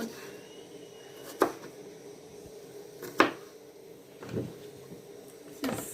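A few scattered knocks of a knife on a cutting board as onions are cut: two sharp loud ones about a second and a half and three seconds in, then softer thuds.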